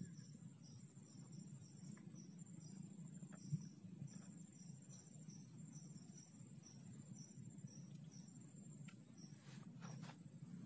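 Faint insects chirping: a steady high-pitched buzz with short pulses repeating about two or three times a second, over a low rumble. A single sharp click comes about a third of the way in.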